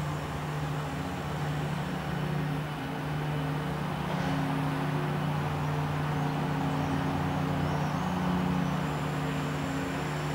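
Steady low engine hum with a constant pitch, over a background of city traffic noise.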